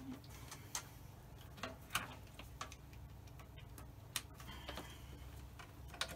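Irregular sharp clicks and taps of test-lead plugs and clips being handled and reconnected at an electronics bench, about seven in six seconds, over a steady low electrical hum from the bench equipment.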